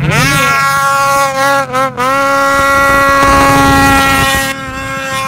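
Snowmobile engine revving hard and held at high revs as the sled pulls a wheelie through powder. The pitch climbs fast at the start and stays steady and high, with a brief dip about two seconds in, then eases off near the end.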